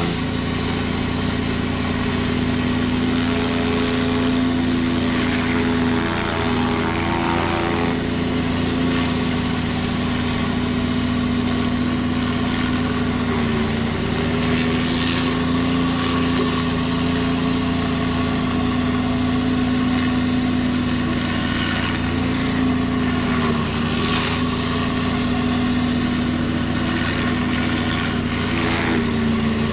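Gas pressure-washer engine running steadily under the hiss of a spinning surface cleaner's water jets on concrete. The engine's pitch sags briefly about four times.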